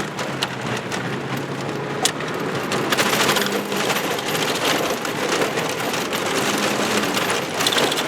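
Heard from inside a small Mazda car driven fast on a dirt road: loose gravel crackling against the tyres and underbody, with the body rattling over the bumps and the engine running underneath. The crackle gets denser about three seconds in.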